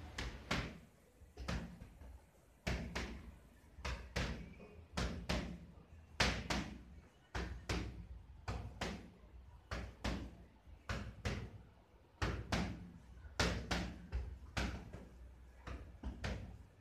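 Boxing gloves striking focus mitts in one-two combinations: pairs of sharp smacks about once a second, with the odd triple.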